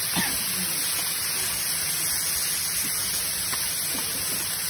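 Quail pieces sizzling on a hot flat griddle, a steady hiss, with a few light clicks and scrapes of a metal spatula turning the meat.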